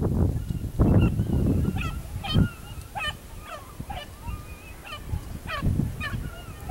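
A beagle baying on a rabbit's track, a steady string of short falling cries about one or two a second with a few longer drawn-out notes, heard at a distance. A low rumbling noise comes near the start and again near the end.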